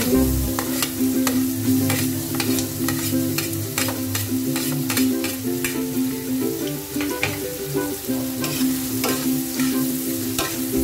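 Diced onion sizzling in hot melted butter in an aluminium wok, with a metal utensil scraping and clicking against the pan as the onion is pushed in and stirred.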